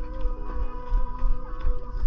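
Music: a melody of held notes shifting in pitch, over irregular low thumps.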